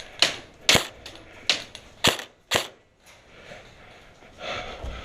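Airsoft gun fired in five single shots about half a second apart, each a sharp crack.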